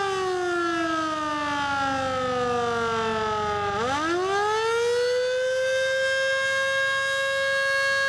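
Federal Signal Model 2 electromechanical outdoor warning siren sounding the attack (wail) signal. Its pitch falls slowly for nearly four seconds, then winds back up within about two seconds and holds steady at the top.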